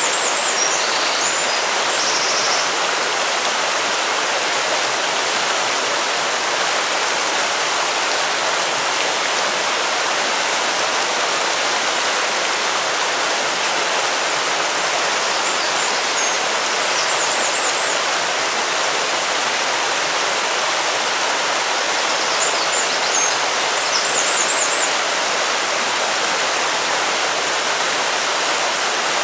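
River water flowing steadily, an even rushing noise with no breaks. Faint high chirps come through a few times.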